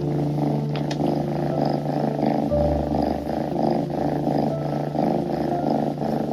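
Tuxedo kitten purring close to the microphone: a steady rumble in even pulses about three times a second.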